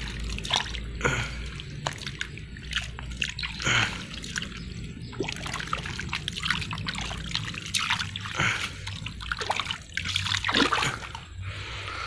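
Muddy water and wet mud splashing and trickling in short, irregular bursts.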